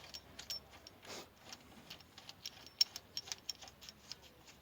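Ratchet wrench clicking in quick, uneven strokes, a few sharp metallic ticks a second, as the idler pulley bolt is run in.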